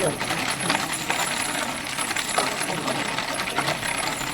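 Steel ball-bearing wheels of a wooden firewood cart rolling fast over pavement on a downhill run: a continuous metallic rattling clatter.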